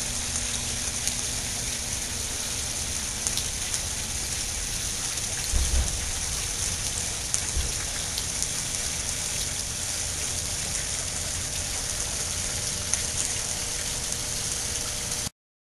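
Fountain water splashing steadily into its pool, a continuous hiss, with a couple of low bumps on the microphone around six seconds in. It cuts off suddenly near the end.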